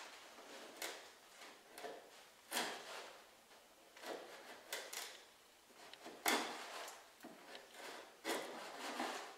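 Hand chisel paring into the cedar strips at a canoe's stem: a run of short, irregular scraping cuts, the loudest about six seconds in and near the end. The wood is being cut away to make a recess so the ash outer stem pieces sit flush with the strips.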